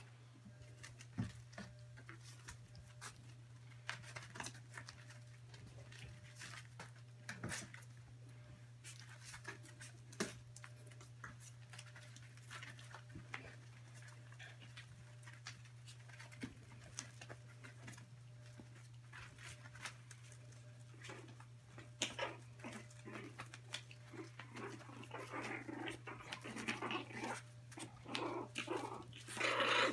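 Three-and-a-half-week-old puppies playing on puppy pads: small paws pattering and scratching, with soft whimpers. In the last several seconds the noise gets busier with puppy yips and little growls. A steady low hum sits underneath.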